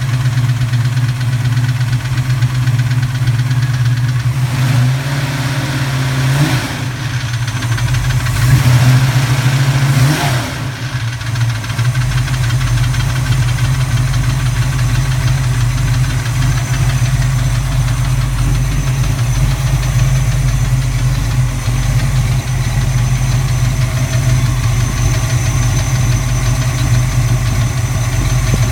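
Recently rebuilt 331 V8 running on a cold start with a metallic rapping from the passenger side, which the owner suspects is valve clatter or piston slap; it goes away once the engine is warm. The engine is revved briefly between about 8 and 10 seconds in, then settles back to a steady idle.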